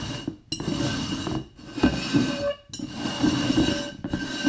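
Upturned terracotta flower pots being shuffled and slid across a wooden floor: a grinding scrape with a faint ringing of the clay, in several strokes with brief pauses between.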